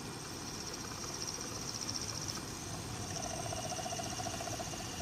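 Worn HVAC blower motor and fan running and rattling, with a high-pitched squeal that pulses rapidly; a second, lower squealing tone joins about three seconds in. It is the noisy unit that was in the car, its squeal and rattle the sign of a worn, overworked blower motor.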